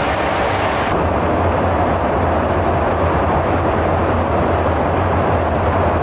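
Steady cabin noise of a KC-135 Stratotanker in flight: a constant roar of engines and rushing air with a low hum under it, heard from inside the aircraft. About a second in the upper hiss drops away and the sound turns duller.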